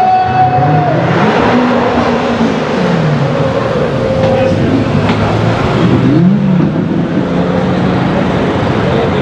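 Supercar engines revving and accelerating in a tunnel: the engine notes climb and fall, with a quick blip about six seconds in, over a steady engine drone.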